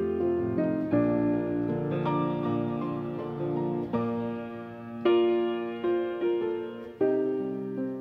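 Slow, gentle background piano music, with notes struck about once a second and left to ring.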